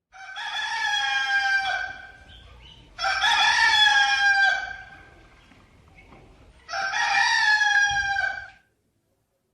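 Rooster crowing three times, each crow lasting about two seconds with a short pause between them.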